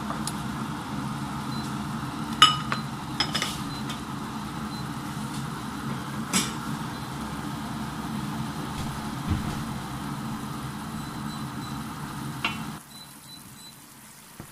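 Fruit-jam syrup boiling and bubbling in a stainless steel frying pan, a steady sizzling rumble, with a few sharp clinks against the pan. The sound cuts off near the end.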